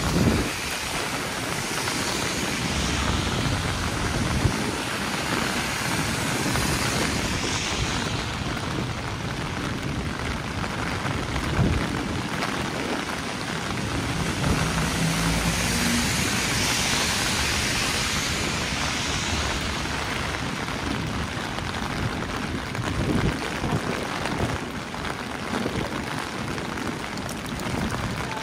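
Steady heavy rain mixed with the hiss of traffic on wet city streets, swelling twice as if vehicles were passing.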